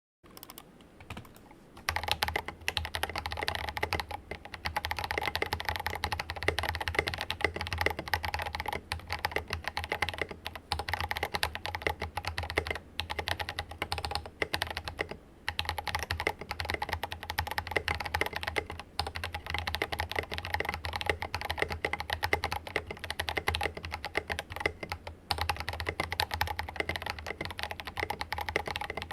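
Steady typing on a mechanical keyboard with Drop Invyr Holy Panda tactile switches, lightly lubed, in a silicone-mounted Rama Works Kara. It is a dense run of keystroke clacks that starts about two seconds in, after a few light taps, and pauses briefly twice.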